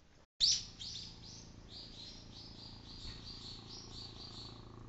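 A bird calling in a rapid string of short, high, falling notes, about three a second, the first the loudest, over the faint steady drone of a distant helicopter.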